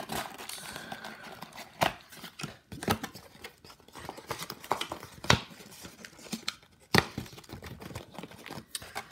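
Cardboard trading-card hobby box being opened by hand, its top flap pulled up and off. Rustling and scraping of the cardboard, broken by several sharp snaps and knocks.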